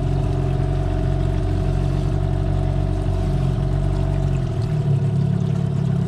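Yamaha outboard motor on an aluminium tinny running steadily at low speed. About four and a half seconds in, the deepest part of the hum drops away and the engine note changes.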